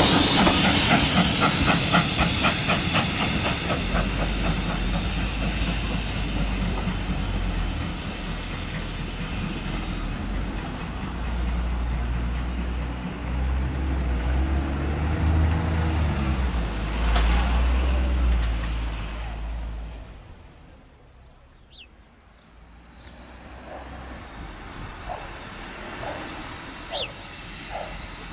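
A steam-hauled train of passenger coaches pulls away, wheels clicking rapidly over the rail joints with a steam hiss, then a lower rumble fading out about twenty seconds in. A few faint high chirps follow near the end.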